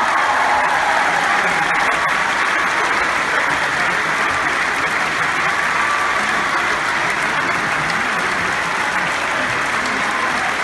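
Theatre audience applauding steadily, a sustained ovation that does not let up.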